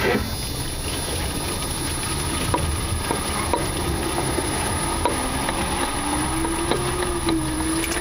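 Irregular knocks and clicks from the underside of a 2018 Nissan Leaf, heard through a mic taped to a member under the bonnet over a steady low rumble, as the car reverses. A faint tone that wavers up and down comes in about five seconds in. The knocking is the car's new, recurring fault.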